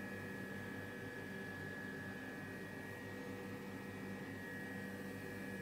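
Steady electrical or machine hum with a thin high whine above it, unchanging throughout.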